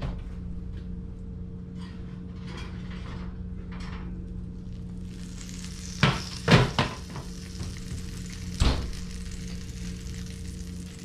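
A hot glass baking dish of baked fish is set down on a glass-top electric stove with a few sharp knocks about six seconds in, and another knock near nine seconds. The dish sizzles in its juices, over a steady hum.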